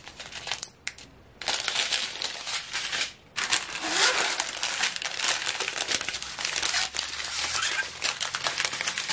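Small clear plastic zip bags full of diamond painting resin drills crinkling as they are handled and spread out, in short spells at first, then without a break.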